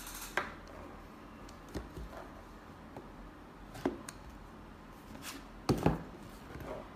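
A cardboard product box being handled and turned over in the hands: scattered light taps and knocks of cardboard, with a pair of louder knocks near the end as it is set down on a table.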